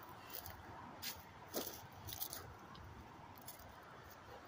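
Faint footsteps crunching on dry leaves and railway ballast, about five irregular crunches.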